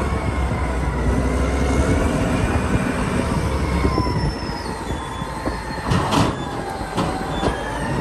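Caterpillar 992C wheel loader working: its diesel engine runs under load with a steady low rumble and a faint whine as the raised bucket is tipped into a dump truck. About six seconds in there is a louder rattle as the load goes into the truck.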